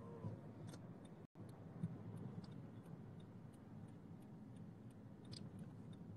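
Faint low rumble of a car's interior while riding, with a few scattered light clicks. The sound cuts out for an instant about a second in.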